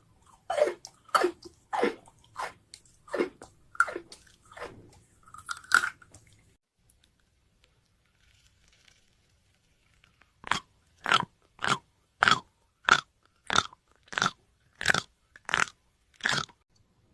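Crisp crunching bites into raw vegetables: a run of about ten crunches, a pause of about four seconds, then another steady run of about ten crunches, roughly one and a half a second.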